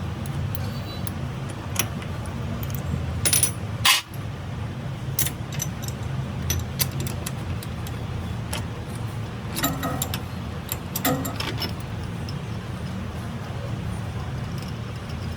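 Metal tools and parts clinking and tapping, a scattering of sharp clinks with the loudest a few seconds in and again about two thirds of the way through, over a steady low hum.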